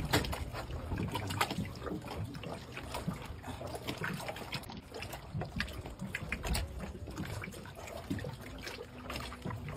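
Seawater lapping and dribbling against a boat's side and a rock, with frequent small irregular splashes and clicks.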